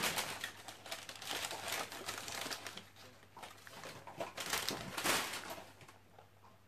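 Crumpled printed paper packing crinkling and rustling as it is unwrapped by hand from a small plastic tub. It tails off near the end.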